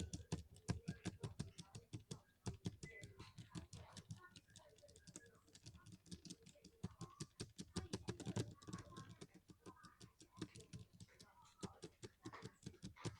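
Keys being pressed in quick succession on a keyboard-like device, a fast run of sharp clicks, several a second, with brief pauses.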